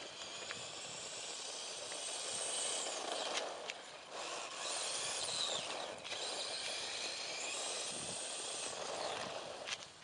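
Electric radio-controlled car's motor whining, with its tyres hissing and crunching over gravel; the whine rises and falls with the throttle.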